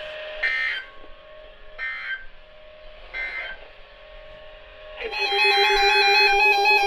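Emergency Alert System SAME header: three short bursts of digital data warbling, about a second and a half apart. About five seconds in, a loud, steady attention tone starts, announcing an incoming alert.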